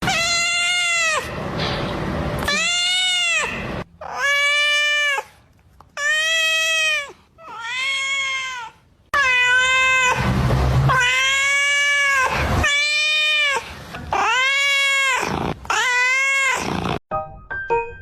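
Domestic cat meowing over and over, about ten drawn-out meows of roughly a second each, every one rising and then falling in pitch.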